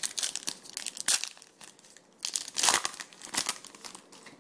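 Foil wrapper of a trading-card pack crinkling and tearing as the pack is ripped open, with louder crackling bursts about a second in and again near the middle.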